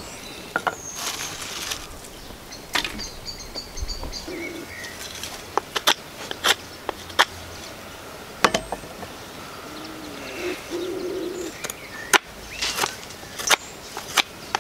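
Irregular sharp knocks and clicks of a knife and pieces of ivy wood set down and worked on a log chopping block, while a hearth board for a hand-drill friction fire is trimmed to shape. Birds chirp and call in the background.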